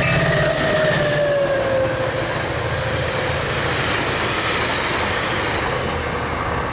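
Diesel-hauled commuter train with bilevel coaches passing and drawing away. The locomotive's low engine drone and a whine falling in pitch fade over the first second or two, leaving a steady rumble of the coaches' wheels on the rails.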